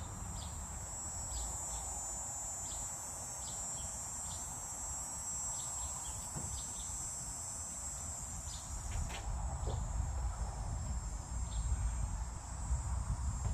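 Insects outdoors keep up a steady high buzz, with short high chirps repeating about once a second. A low rumble grows louder in the second half.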